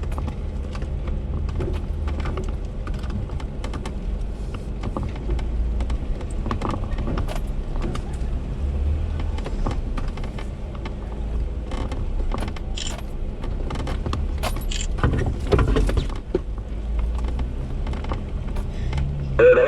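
A Jeep's engine running at low idle, a steady low hum, with frequent small clicks, rattles and creaks from the vehicle body as it sits or crawls on a rough trail.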